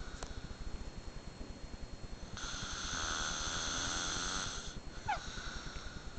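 A sleeping man snoring, with a fast low flutter all through. About two and a half seconds in comes a long hissing breath of a little over two seconds, the loudest part, and soon after it a short falling whistle.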